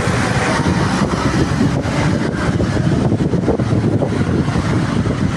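Diesel bus engine running close by: a steady, loud low rumble with a fast flutter, in street traffic.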